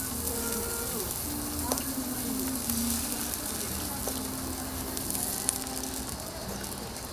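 Food sizzling on a flat-top griddle as toast is cooked, with a couple of light utensil clicks and a low hum that shifts in pitch now and then.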